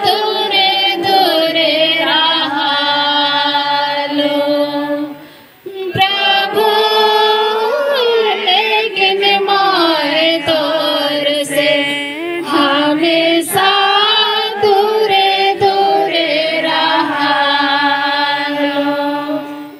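Several voices singing a slow Christian devotional hymn to Jesus, holding long notes, with a brief break between phrases about five and a half seconds in.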